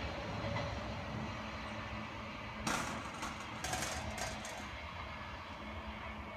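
Queensland Rail NGR electric multiple unit running away down the line, its sound slowly fading. A short cluster of sharp clicks and rattles comes about three seconds in.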